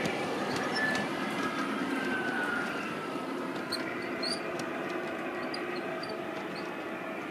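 O gauge model container train rolling along its track with a steady rumble and clatter of wheels. A faint high tone slides lower about two seconds in, and small high squeaks come around four seconds in.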